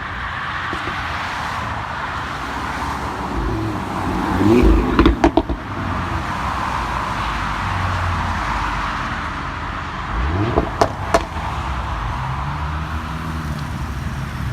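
Audi RS3 8V's turbocharged five-cylinder engine with a sport exhaust, running over steady road and wind noise. About four seconds in, and again about ten seconds in, the engine revs up briefly and the exhaust fires a few sharp pops and bangs.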